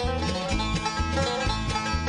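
Bluegrass band playing an instrumental break with no singing: banjo and acoustic guitar picking over a bass line of low notes on the beat.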